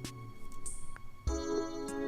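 Background music of sustained, held tones, changing to a new chord a little over a second in.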